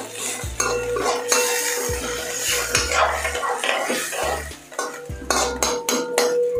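Metal spatula scraping and clinking against a metal kadhai (wok) while stirring Manchurian balls in a thin sauce, in a run of irregular scrapes and clinks.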